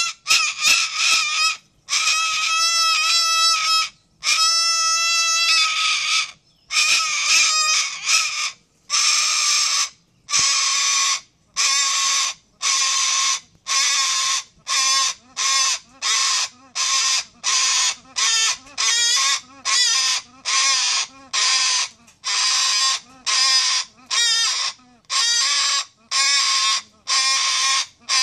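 White cockatoo calling loudly over and over. The first few calls are drawn out over a second or more each; after that they come shorter and in quick succession, a bit more than one a second.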